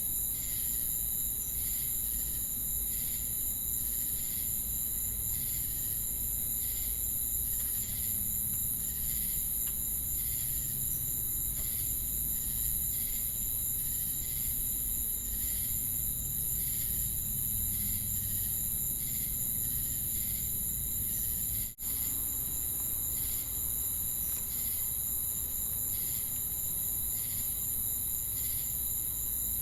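Crickets and cicadas calling together: a continuous high-pitched shrill with a regular chirp pulsing about once a second over it. The sound cuts out for an instant about twenty-two seconds in.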